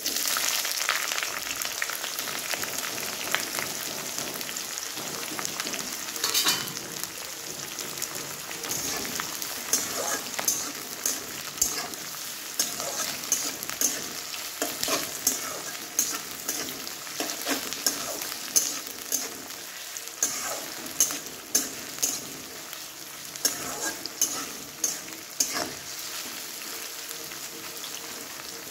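Sliced onions sizzling in hot oil in a metal kadhai, the sizzle starting at once as they drop in and slowly fading. From about a third of the way in, a flat metal spatula scrapes and taps against the pan as it stirs, about once or twice a second.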